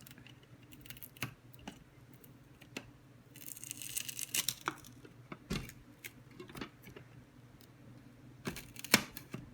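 Adhesive tape being peeled off the plastic trays of a pet water fountain, with a ripping sound about three and a half seconds in, amid scattered clicks and knocks. The loudest is a sharp knock near the end.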